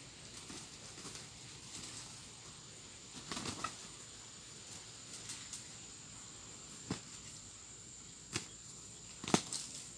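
Two roosters fighting: short flurries of wing flapping and body strikes, about three and a half seconds in, again around seven and eight seconds, and loudest near the end. A steady high insect drone runs underneath.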